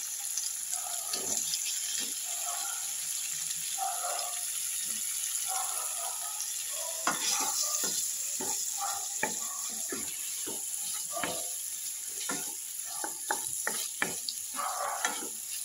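Paneer cubes sizzling as they shallow-fry in oil in a non-stick kadai. From about halfway through, a wooden spatula knocks and scrapes against the pan in quick strokes as the cubes are turned.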